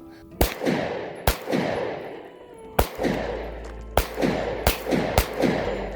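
Six handgun shots at an uneven pace over about five seconds, each trailing off in a fading echo.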